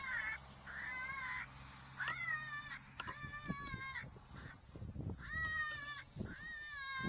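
A series of about six high, wavering animal cries, each about a second long, rising at the start and then falling away.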